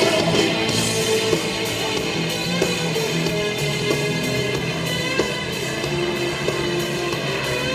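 Background rock music with electric guitar and drums, held notes over a regular beat.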